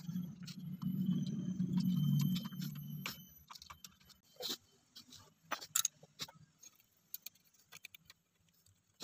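Light metallic clicks and clinks of a scooter's cam chain and camshaft sprocket being handled by hand on the cylinder head, scattered through the second half. For the first three seconds a low rumble, the loudest sound, swells and fades under them.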